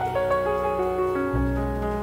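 Outro music: a piano melody of held notes over a sustained bass.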